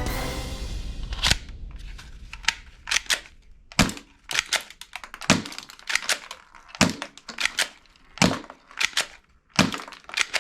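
Toy gun firing: a series of sharp snaps, the loudest roughly every second and a half, with smaller clicks in between.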